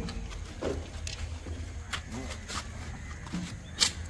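A few short clicks and knocks from washing machine parts being handled and fitted, over a steady low hum. The sharpest knock comes near the end.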